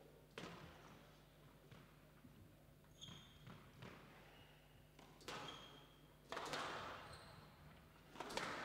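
Squash rally: about seven sharp, echoing hits as the ball is struck by the rackets and smacks off the walls, with a few short high squeaks of court shoes on the floor between shots.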